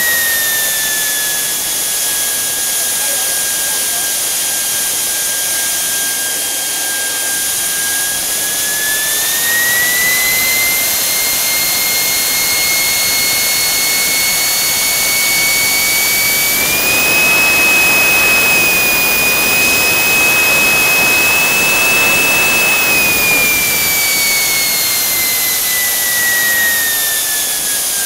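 JetJoe 1400 turbine engine running with a steady whine. The pitch settles a little lower at first, then rises in two steps as the throttle is opened toward high, holds, and falls again near the end as it is throttled back toward half.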